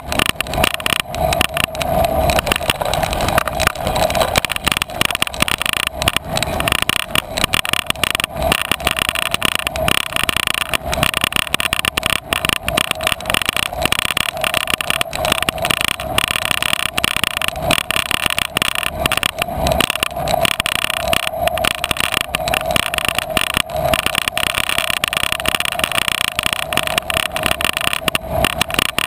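Bicycle riding over a rough grassy trail, heard through the bike-mounted camera: a steady rolling rumble and hum with frequent irregular knocks and rattles as the bike and camera jolt over bumps.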